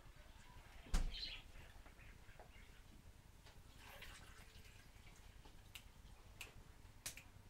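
A single knock about a second in, then cold water poured from a plastic jug into a blender jar of cut lulo fruit, faintly trickling, with a few small clicks.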